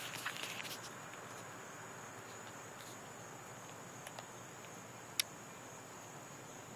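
Steady high-pitched insect trilling, typical of a cricket or katydid chorus, over faint outdoor hiss. A soft rustle in the first second and a few sharp clicks, the loudest about five seconds in.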